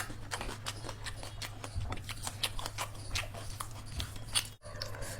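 Crunchy food being chewed close to the microphone: many quick, irregular crunches over a steady low hum, with the sound dropping out for an instant near the end.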